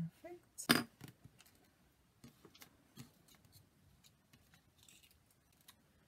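Small craft tools and pieces handled on a tabletop: a sharp click about three-quarters of a second in, then scattered faint taps and ticks.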